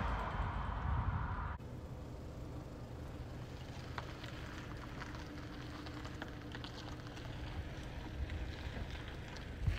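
A car's tyre and engine noise on the road fades, then cuts off suddenly about a second and a half in. After that a car's engine runs as a low, steady rumble as it creeps across a parking lot, with faint scattered ticks and a couple of low thumps near the end.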